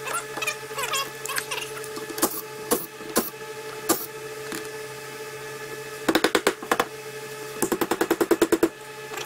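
A few sharp clicks of metal parts being handled, then two short bursts of fast, even rattling from a handheld cordless power tool, about ten to fifteen strokes a second, undoing fasteners on the front of a Bosch CP4 diesel injection pump held in a vise. The bursts come about six seconds in and again near the end.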